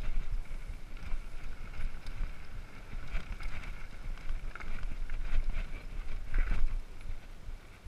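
Mountain bike rolling down a rocky single track, rattling and clattering over stones, with wind and bumps rumbling on the on-bike camera's microphone; a harder jolt comes about six and a half seconds in.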